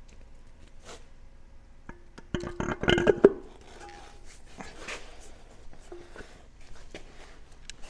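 Steel torque converter knocking and scraping against the transmission's front pump and input shaft as it is pushed and turned onto the shaft. There is a short run of metallic clanks with a ringing note about two to three seconds in, then faint rubbing.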